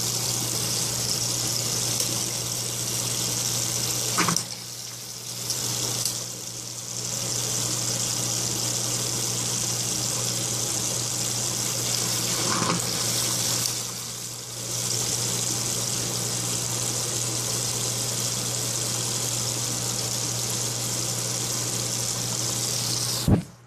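Bathroom tap running steadily into a sink, the tap water carrying methane gas. The flow dips twice, with a couple of short clicks, and is shut off just before the end.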